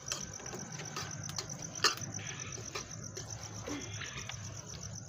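Crickets chirping in a steady, fast, high-pitched pulse, with a single sharp click about two seconds in.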